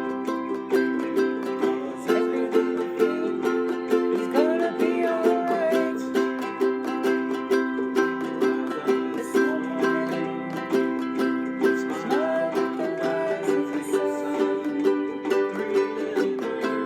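Ukulele strummed in a steady rhythm through a simple chord progression.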